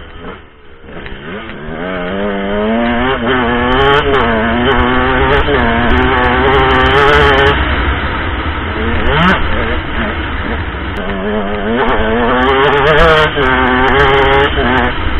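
KTM SX125 single-cylinder two-stroke dirt bike engine revving hard, its pitch climbing and dropping again and again as the rider accelerates, shifts and backs off, with a short lull about a second in.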